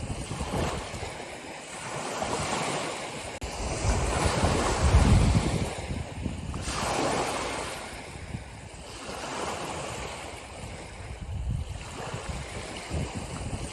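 Ocean waves breaking and washing on the shore, the surf swelling and ebbing, with the biggest wave about four to five seconds in.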